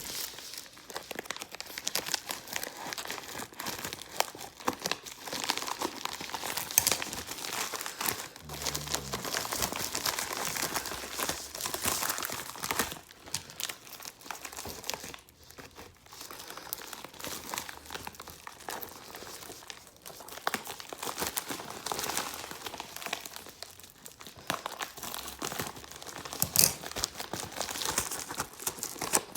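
Packaging being opened: crinkling, rustling and tearing of the wrapping, nearly continuous with a brief pause about halfway through.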